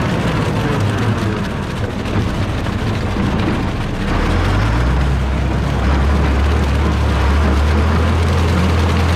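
Tractor engine running, its pitch rising about four seconds in as it revs up, then holding steady at the higher speed.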